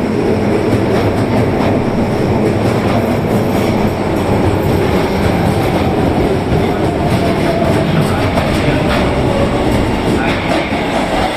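Tanimachi Line subway train running, a loud steady rumble of wheels on rail with some clickety-clack. Over the last few seconds a faint whine slowly falls in pitch.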